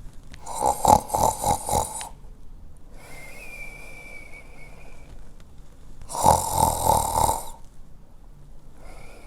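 Comic, cartoon-style snoring: two loud, rattling snores, each followed by a high, steady whistle on the breath out. The second whistle is fainter and starts near the end.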